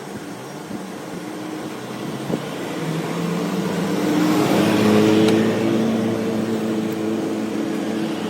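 A motor running with a hum of several steady tones over a hiss, rising a little in pitch and growing louder toward the middle before easing slightly.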